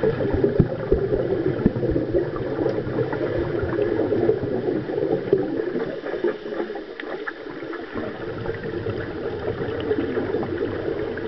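Muffled, churning water noise of swimmers' strokes and kicks heard from under the water, with scattered short clicks and bubbling.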